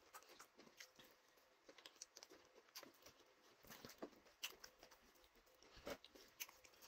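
Faint, scattered small wet clicks and smacks of eating by hand: fufu being pulled off, dipped in ogbono soup and chewed.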